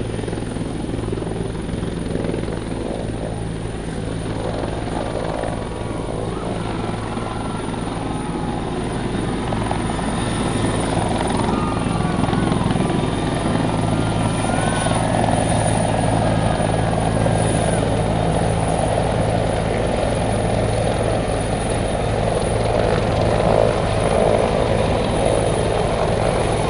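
Helicopter running with a steady, even drone that grows a little louder about halfway through.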